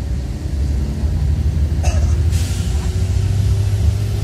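Mercedes-Benz OC 500RF tri-axle coach's engine rumbling low, heard inside the cabin from a rear seat. About two seconds in comes a short click, then a hiss of air that fades out.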